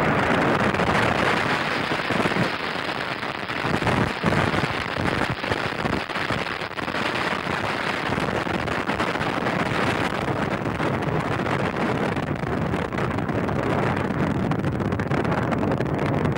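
Solid-fuel M-V rocket lifting off and climbing: the motor's exhaust makes a steady, dense crackling noise.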